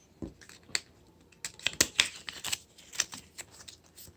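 Paper and plastic toy packaging being handled, a run of crisp clicks and crinkles that is busiest in the middle.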